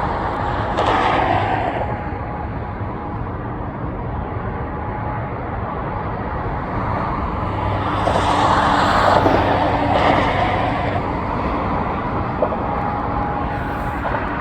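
Long freight train's cars rolling past at speed: a steady rumble and clatter of steel wheels on the rails, growing louder about two-thirds of the way through.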